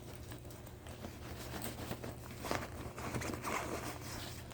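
Rustling and light irregular clicks and knocks of objects being handled and rummaged in a backpack, busiest around the middle, over a faint steady low hum.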